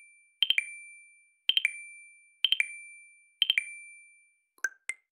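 Yahoo timer's countdown chime for the last seconds: one bright electronic ding about every second, each a quick triple attack that rings out and fades, four in all. Near the end, as the timer reaches zero, a brief flurry of shorter higher pips and clicks follows.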